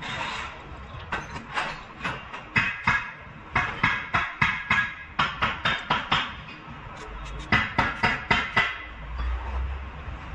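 Repeated hammer blows on steel, struck in quick runs of several blows with a pause of about two seconds in the middle; each blow rings briefly. The blows are typical of knocking suspension parts such as a control arm or sway bar link into place.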